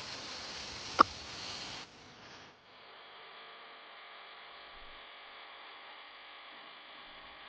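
A steady rushing hiss with one sharp click about a second in, then it cuts off and gives way to a faint, steady electrical hum.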